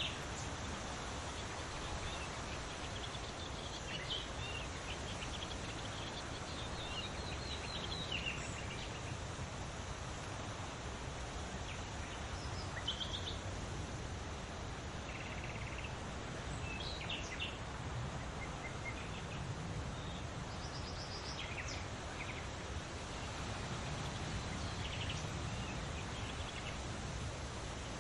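Wild birds chirping and calling every few seconds, short trills and tweets, over a steady outdoor noise bed.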